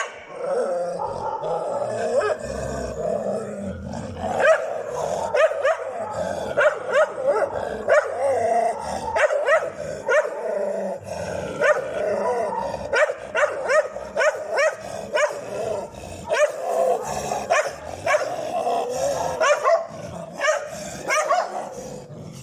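Dogs fighting: continuous growling and snarling, with sharp barks breaking in about once or twice a second.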